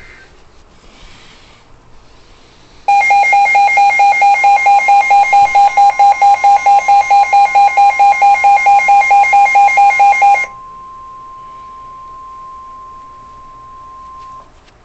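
A weather alert receiver sounds a loud, pulsing electronic alarm beep, about four to five pulses a second, for roughly seven seconds. Under it, the weather radio broadcast's steady one-pitch warning alarm tone begins and carries on alone until shortly before the end. Together they signal an incoming severe thunderstorm warning.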